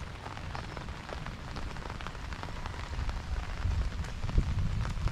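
Rain falling, with many separate drop hits close by over a steady hiss and a low rumble underneath that grows louder toward the end.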